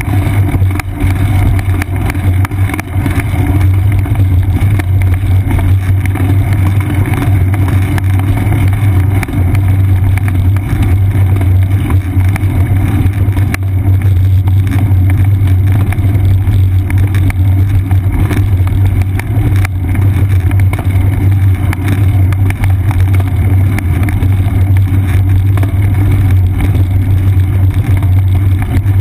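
Steady wind rush and road rumble picked up by a GoPro Hero 2 mounted on a moving bicycle's seat post, with a constant low hum under it.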